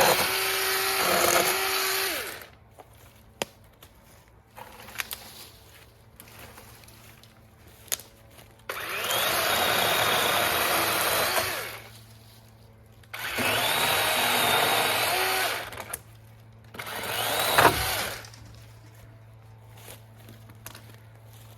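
Dewalt 20 V battery chainsaw cutting cherry limbs in four bursts, the motor whining up to speed at the start of each and winding down at the end. A few sharp knocks and cracks of wood come between the cuts.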